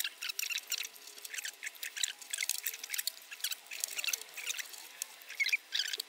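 Paper lining rustling and crinkling in the hands as it is folded and fitted into a small finger-jointed wooden box: an irregular run of short, crisp rustles and light clicks.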